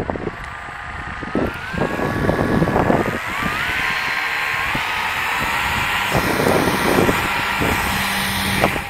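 The ASW28 RC glider's motor and folding propeller spinning up with a whine that climbs in steps, then holding steady at full power with rushing prop wash and wind buffeting on the microphone. The sound falls away just before the end as the glider leaves.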